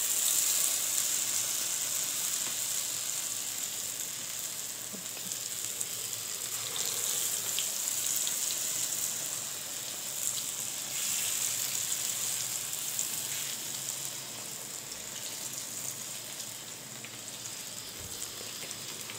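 Batter-coated potato pakoras deep-frying in hot oil: a steady sizzle with small crackles that slowly grows fainter.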